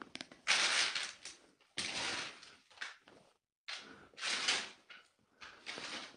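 Footsteps across a floor littered with debris and plastic sheeting: a string of short rustling bursts, about six in a few seconds.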